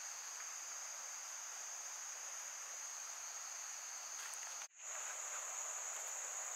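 Steady high-pitched insect chorus over a faint hiss, which cuts out for an instant about two-thirds of the way through.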